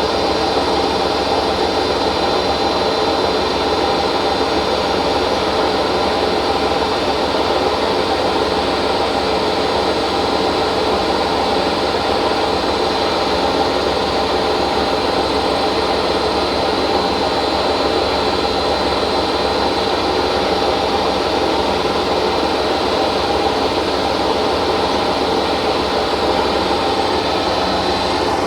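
Hotpoint First Edition washing machine on a 1200 rpm spin, running with a loud, steady noise and a thin high whine over it: the sound of bad drum bearings.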